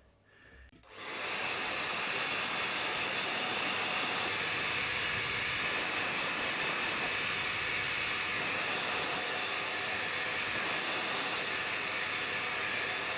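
Remington Copper Radiance AC5700 hairdryer switched on about a second in and then blowing steadily, an even rush of air.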